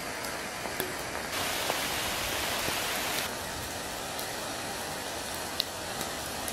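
Steady rain falling through the woods, an even hiss with a few sharp ticks of single drops, briefly a little brighter about one to three seconds in.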